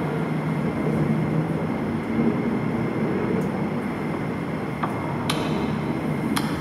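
A steady low rumble on a film soundtrack, with a few faint sharp ticks near the end.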